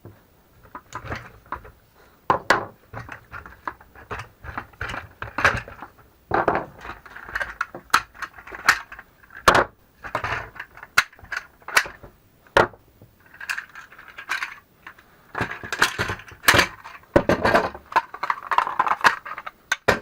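A C-Tug kayak trolley being taken apart quickly by hand: a busy run of irregular clicks, knocks and rattles as its parts are pulled free and set down.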